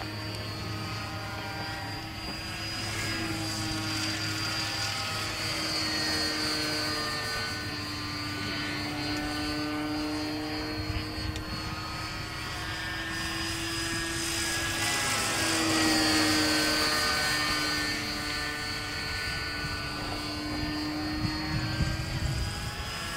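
A gyrocopter flying overhead, its engine and propeller giving a steady, pitched hum. The pitch slowly wavers, dipping and then rising again about two thirds of the way through.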